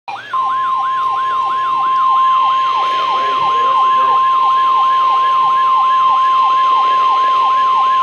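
NOAA Weather Radio 1050 Hz warning alarm tone, held steady, sent out for the required weekly test. Over it, a weather radio receiver's alert siren sweeps downward about three times a second, showing that the receiver has been set off by the test.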